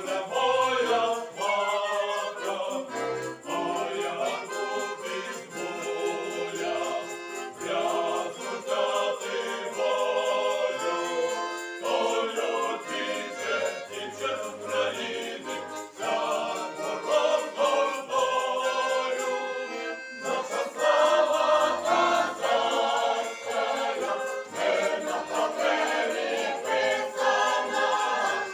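Folk choir singing a Ukrainian Cossack song in harmony, accompanied by bayan (button accordion) and violin.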